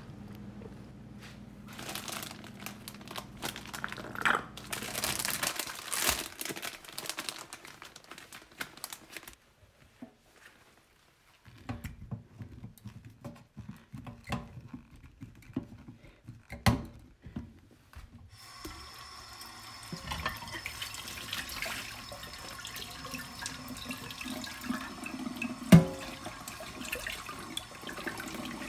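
Dishes washed by hand in a stainless-steel kitchen sink: clinks and clatter of a glass and plate, then the tap running steadily over a glass being rinsed, with one sharp knock against the sink near the end.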